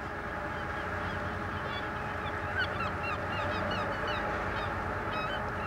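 Seabirds, most likely gulls, giving many short overlapping calls over a steady background noise; the calls grow thicker from about two seconds in.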